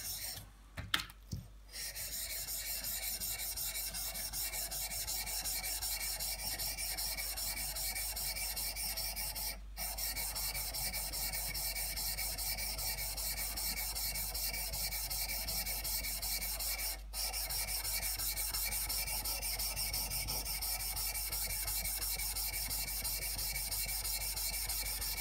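Old steel chisel rubbed back and forth on a wet Makita 1300-grit water stone, a steady gritty scraping with a few short breaks, as the chisel's face is matted on the stone.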